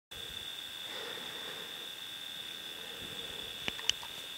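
Faint, steady high-pitched trill of night insects such as crickets over a low hiss, with two quick clicks near the end.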